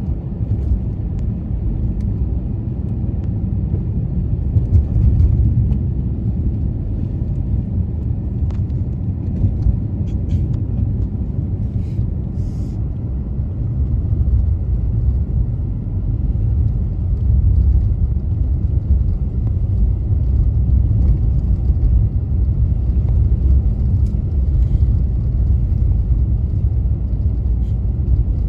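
Steady low rumble of a car driving on snow-covered roads, tyre and engine noise together, with a few faint clicks. It grows slightly louder about halfway through.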